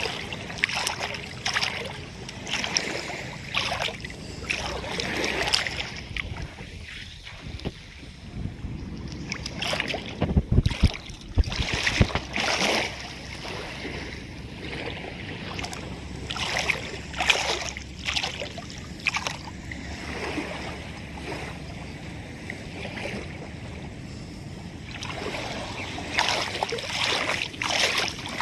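Small sea waves washing onto the beach in irregular surges, with wind gusting on the microphone and a few low wind buffets about ten to twelve seconds in.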